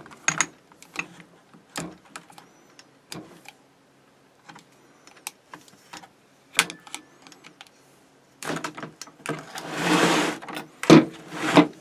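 Hard plastic blister packaging being pried and bent by hand to free a new ratchet: scattered clicks and crackles, a longer crinkling rush about ten seconds in, and two sharp snaps near the end.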